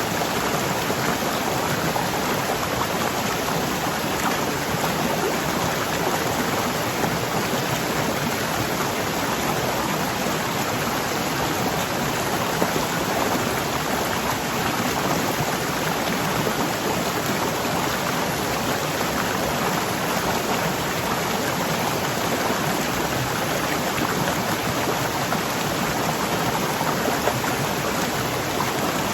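Waterfall rushing steadily, an even hiss of falling water with no breaks or changes.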